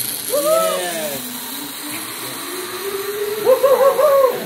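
A zip-line trolley running down its cable with a steady whine that slowly rises in pitch as it picks up speed, under two long whooping shouts, one about half a second in and a wavering one near the end.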